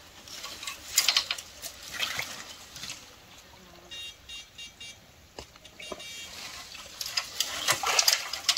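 Water splashing and dry leaves and bamboo rustling as hands grope through a shallow, leaf-choked stream bed for fish: short splashes about a second and two seconds in, and a busier run of them near the end. In the quieter middle a faint high chirping repeats a few times.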